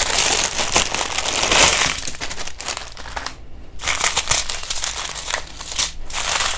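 Crinkling plastic: a clear plastic bag being handled and emptied, and small sealed plastic packets of round diamond-painting drills being shuffled together by hand, with a brief pause a little past halfway.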